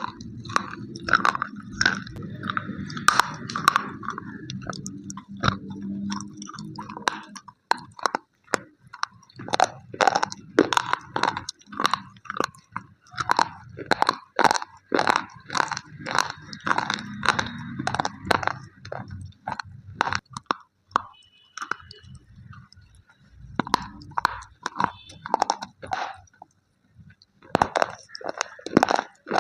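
Slate pencils being bitten and chewed close to the microphone: a fast run of sharp, crunchy cracks over a low mouth rumble, with two short pauses near the end.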